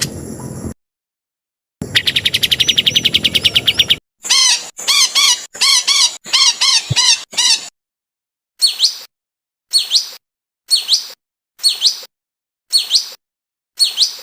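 Edited recordings of songbird calls, cut together with silent gaps: first a fast, even trill, then a run of short looping chirps, then one sharp call repeated about every 0.7 s.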